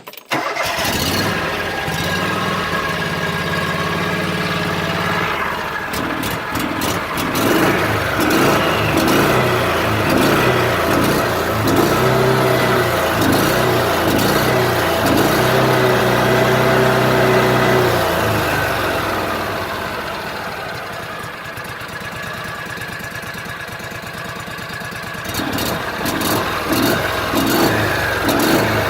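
The Kawasaki gasoline engine of a John Deere Gator HPX utility vehicle catching almost at once and running, on its first start after a carburetor rebuild following more than a year of sitting. Its speed rises and falls through the middle, drops to a quieter, lower idle about twenty seconds in, then picks up again near the end.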